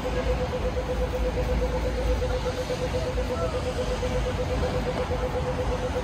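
City street traffic: a steady low rumble of vehicles, with a rapid, even beeping at one pitch over it.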